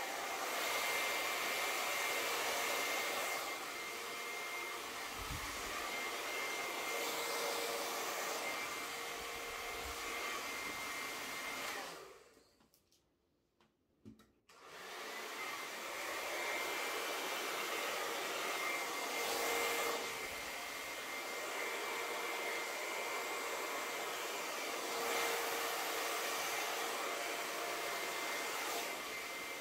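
Hair dryer blowing steadily across wet poured acrylic paint on a vinyl record, pushing the paint around and bringing up cells. It winds down about twelve seconds in, is briefly off, and is switched back on a few seconds later.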